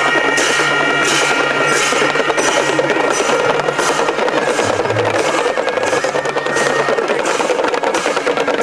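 Traditional Newar dance music played on percussion: drums with clashing cymbals keeping a steady beat of about two strokes a second, over a few held ringing tones.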